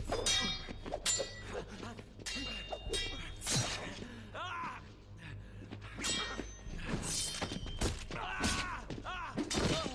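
Steel sword blades clashing again and again at irregular intervals, each strike a sharp metallic clang with a high ringing tail, mixed with the fighters' grunts of effort.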